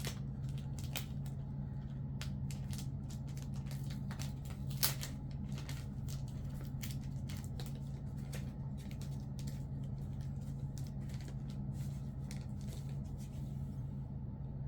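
A plastic comic book bag and board being handled and opened: scattered soft crinkles and clicks, one louder crackle about five seconds in, over a steady low hum.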